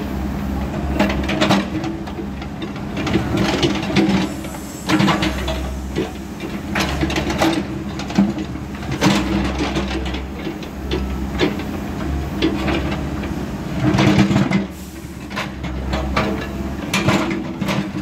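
New Holland backhoe loader's diesel engine running steadily under load while its bucket scrapes and knocks through broken concrete and soil, with repeated clattering of rubble.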